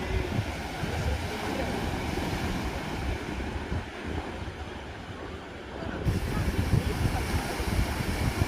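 Waves washing onto a sandy beach, with wind buffeting the microphone; the surf gets louder about six seconds in.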